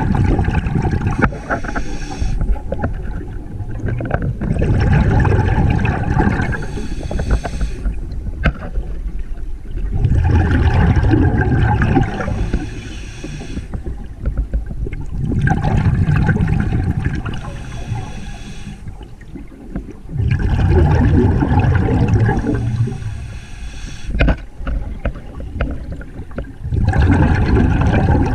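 A scuba diver breathing through a regulator underwater: a burst of exhaled bubbles gurgling about every five seconds, with quieter stretches between breaths.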